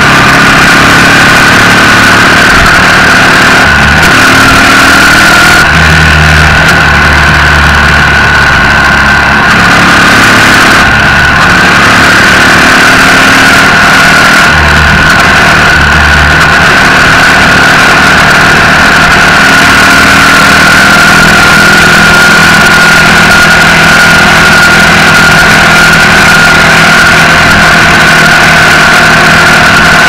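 Yamaha XT225's air-cooled single-cylinder four-stroke engine running steadily at cruising speed on the highway, loud, with wind noise rumbling unevenly over the microphone.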